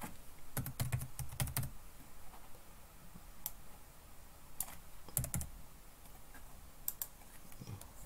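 Computer keyboard keystrokes: a quick run of taps in the first two seconds, then scattered single and paired taps.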